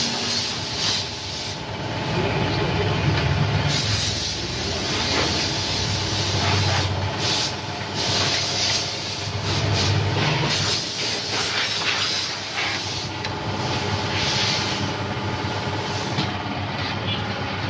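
Loud hissing that starts and stops in bursts of about a second, over a low engine hum.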